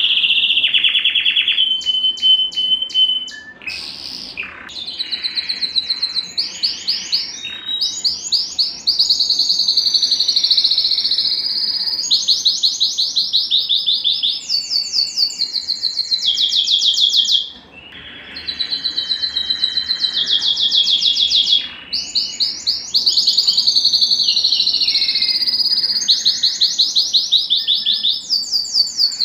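Male canary singing its full song: phrase after phrase of rapid trills, each a fast run of repeated notes, with a few short breaks.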